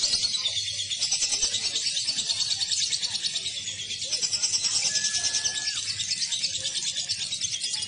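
Lovebirds chattering in long, rapid, high-pitched trills, several overlapping without a break.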